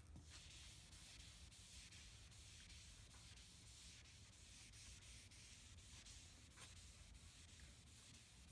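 Faint hand wet sanding of car paint with 3000-grit paper: a soft, steady rubbing hiss that swells and fades with the strokes.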